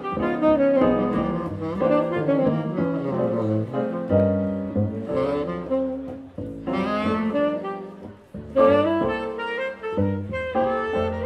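Saxophone playing an instrumental solo in phrases of a slow jazz ballad, with short breaks between phrases, accompanied by upright double bass and keyboard.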